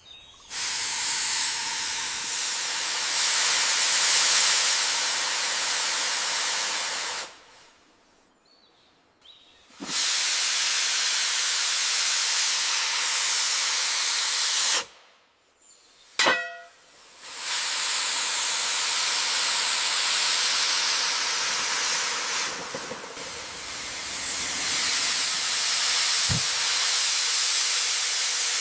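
Steam locomotive venting steam with a loud hiss in three long blasts, each several seconds, cut off sharply between them.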